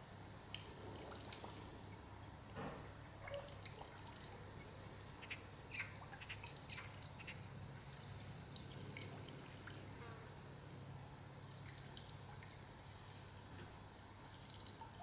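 Quiet ambient background: a faint steady low hum with scattered soft ticks and clicks.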